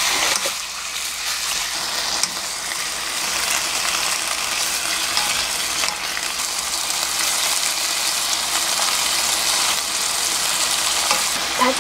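Sliced pork shoulder sizzling steadily as it is stir-fried in a nonstick wok, stirred and turned with a wooden spatula, the meat cooking until almost done.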